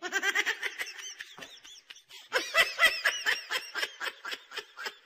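A person giggling in rapid, high-pitched bursts, in two runs with a short break about two seconds in.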